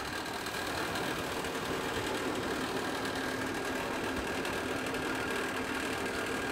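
Petrol-station fuel pump running while fuel flows through the nozzle into a car's tank: a steady mechanical hum with a held higher tone.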